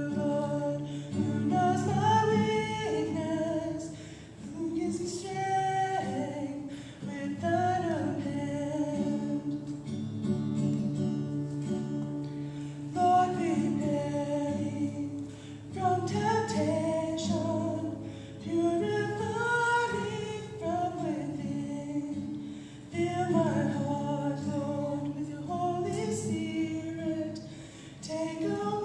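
A woman singing solo with her own acoustic guitar accompaniment, the voice carrying the melody in phrases over steady strumming.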